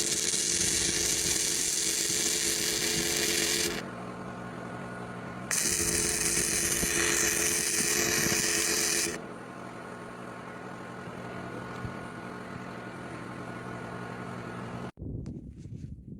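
A power tool running hard in two loud bursts of about four seconds each, with a quieter steady running sound between and after them; the sound cuts off suddenly near the end.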